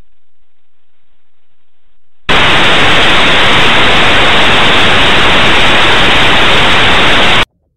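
Loud static hiss, an even noise across all pitches, that starts abruptly about two seconds in and cuts off suddenly about five seconds later; before it there is only a faint hiss.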